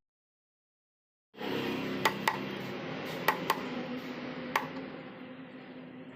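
About a second of dead silence, then a steady background hum, over which come several sharp, light clicks or clinks: two quick pairs and then a single one.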